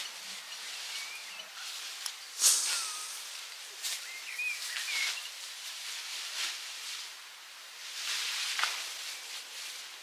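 Intermittent rustling and brushing noises in short rushes, the loudest about two and a half seconds in, with a few faint short chirps between them.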